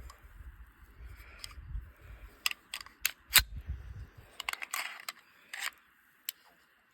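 Sharp metallic clicks and clacks from an empty Desert Eagle .44 Magnum pistol being handled, the loudest about three and a half seconds in, over low handling rumble that stops partway through.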